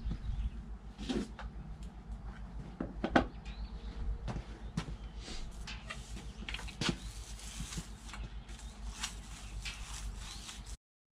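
Irregular light knocks and clicks from handling a can of thick concrete paint and its tools, over a low steady hum, with a few faint bird chirps. The sound cuts off suddenly near the end.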